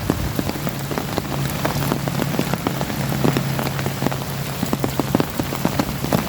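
Steady rain with many irregular close drop taps, the pattering of rain landing on an umbrella held overhead.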